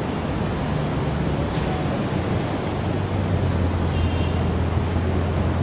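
Steady road traffic noise of passing vehicles, with a low engine hum that grows stronger about halfway through.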